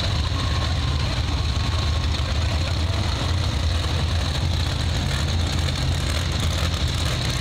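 Monster truck engines running at low speed, a steady low-pitched drone.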